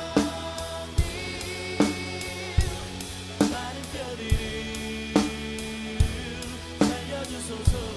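Drum kit played in a steady groove, with bass drum and snare hits landing about every 0.8 seconds and cymbals ringing. The drums play along with music that has a sung melody.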